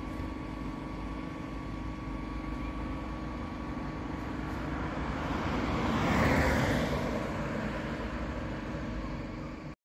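Road traffic: a car passes, growing louder to a peak about six seconds in and then fading, over a steady low rumble.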